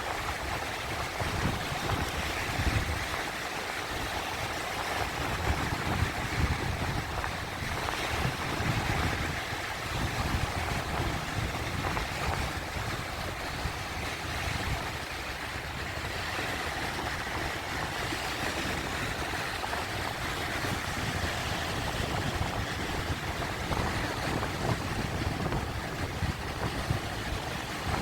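Sea waves washing in: a continuous hiss of surf with irregular low rumbling surges.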